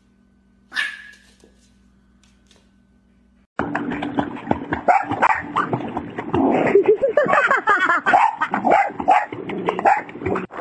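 A single short yip from a French bulldog puppy, then a boxer dog in a swimming pool barking and whining over splashing water, loud and continuous.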